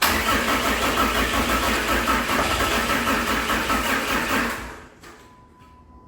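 6.7 Cummins diesel engine cranking over on the starter and trying to fire for about four and a half seconds, then stopping. The engine is struggling to start.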